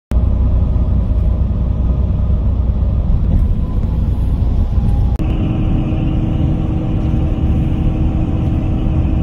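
Steady low drone of engine and tyres inside a tour coach's cabin at highway speed. About five seconds in the sound cuts abruptly to a similar drone with a steady higher hum added.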